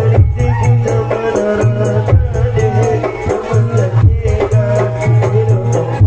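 Live Javanese jaranan (kuda kepang) music: an even, quick rattling beat over a low, sustained tone that comes and goes, with a wavering melodic line on top.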